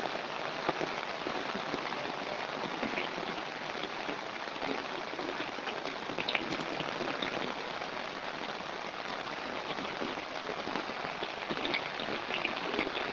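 Heavy monsoon rain falling steadily: an even hiss with a dense patter of drops.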